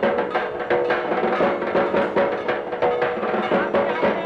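Instrumental music: quick, dense drum strokes over steady held notes.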